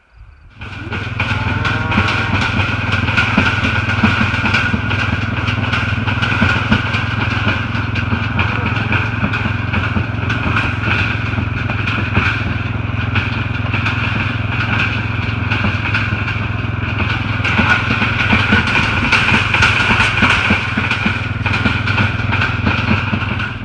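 A motor vehicle engine running steadily at constant speed, with a continuous rattle of small clicks. It starts about half a second in and cuts off abruptly at the end.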